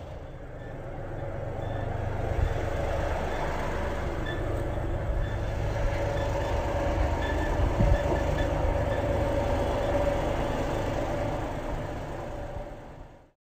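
Compact tractor engine running steadily while towing a loaded flatbed trailer, a low rumble with a steady whine over it, fading out near the end.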